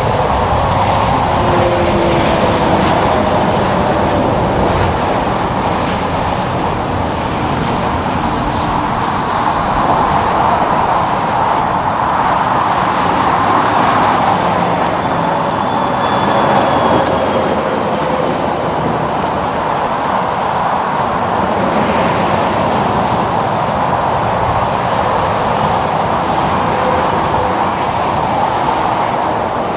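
Steady tyre and engine noise of road traffic with semi trucks passing, swelling and easing as vehicles go by, with a few engine tones falling in pitch.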